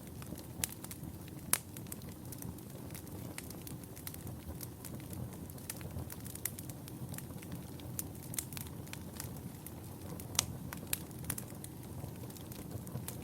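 Wood fire burning in a fireplace: a steady low rumble of flames with irregular sharp crackles and pops, the loudest about a second and a half in and again near ten seconds.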